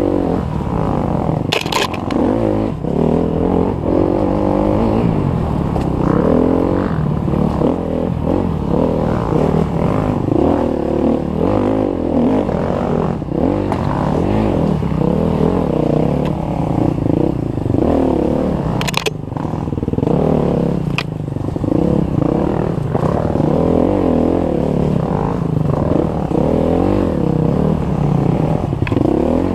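Dirt bike engine running under constant throttle changes, its pitch rising and falling again and again as it rides a tight trail, heard from the rider's helmet. A few sharp knocks cut through, the clearest about two seconds in and two more about two-thirds of the way through.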